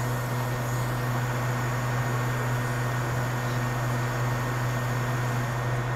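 Hot air rework station running: a steady low electric hum from its blower with an even hiss of moving air, while flux smokes off the board under the nozzle.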